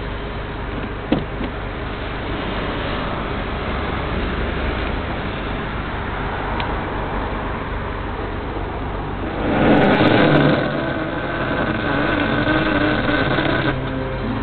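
Alfa Romeo GTV's 3.0 24-valve V6 running, heard from inside the cabin. It swells louder about ten seconds in as it is revved, then settles.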